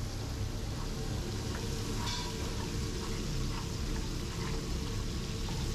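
Steady sizzling of hot olive oil in frying pans on a gas stove, with flour cooking in oil into a roux while floured meatballs fry alongside. A metal spoon stirs the roux, with a light click or two against the pan about two seconds in.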